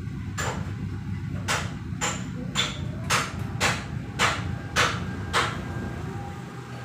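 A series of about nine sharp knocks, roughly one every half second, over a steady low rumble that dies away near the end.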